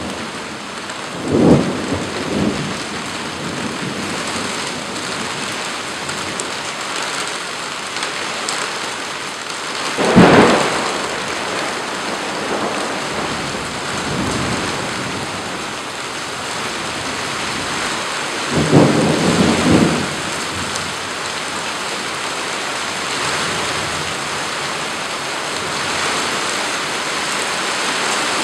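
Heavy rain falling steadily through a thunderstorm, with claps of thunder: one about a second and a half in, the loudest about ten seconds in, and a longer rumble of several claps around nineteen to twenty seconds.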